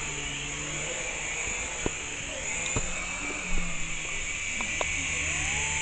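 Small electric RC helicopter's motors and rotors running with a steady buzzing whine, with a few sharp clicks partway through.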